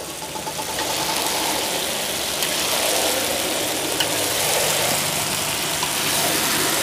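Potatoes and porcini mushrooms frying in a hot pan: a dense, steady sizzle that swells up over the first second and then holds.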